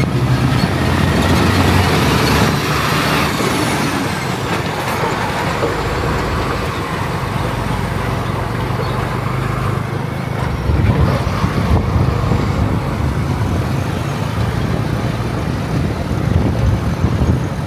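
Motor vehicle engine running steadily under road and wind noise while driving, growing louder about eleven seconds in.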